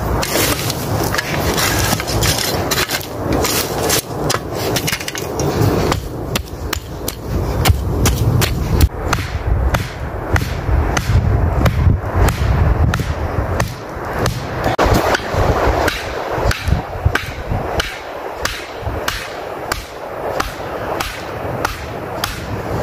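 Repeated blows on wood, a few a second and irregular, over a low rumble of wind on the microphone.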